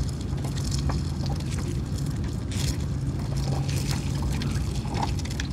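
Water splashing and trickling as a gill net is worked aboard a small river boat, with a low, steady motor hum underneath.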